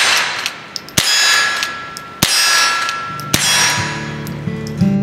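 Steel targets struck by .22 rimfire bullets from a lever-action rifle, each hit a sharp crack followed by a long metallic ring. There are three hits about a second and a quarter apart, and the quiet subsonic loads leave the clang of the steel louder than the shot. Strummed acoustic guitar music comes in about three seconds in.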